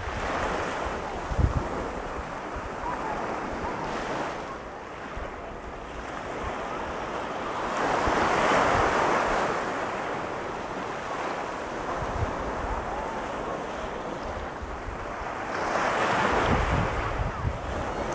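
Ocean surf breaking and washing up on a sand beach, swelling louder about eight seconds in and again near the end, with wind buffeting the microphone in short low gusts.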